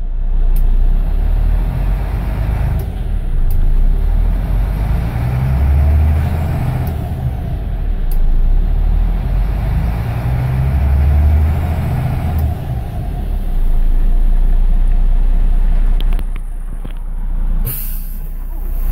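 Scania L94IB bus's DC9 diesel engine revved up and down several times while the bus stands still, its drone swelling and falling between idle and about 1000 rpm. Near the end there is a short hiss of released compressed air.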